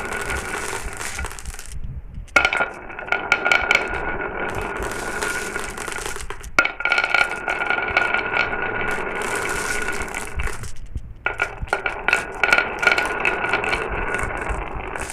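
Glass marbles rolling down a marble-run track with a continuous rumble and many sharp clicks as they knock against each other and the track. The rolling dies away briefly twice, about two seconds in and again near eleven seconds.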